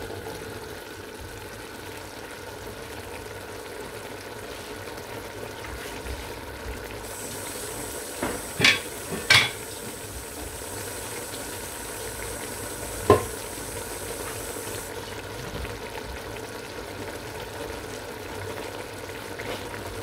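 Grated onions frying in oil in a stainless steel pot, with a whole chicken laid on them, giving a steady gentle sizzle. There are a few sharp knocks: two close together about nine seconds in and one about four seconds later.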